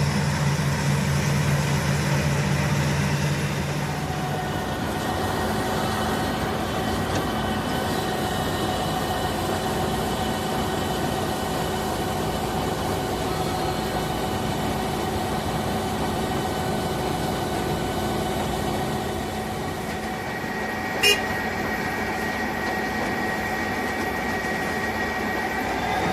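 KZS-812 combine harvester running steadily on its freshly rebuilt D-260 inline-six diesel, with a low hum that drops away about four seconds in. A single sharp click comes about five seconds before the end.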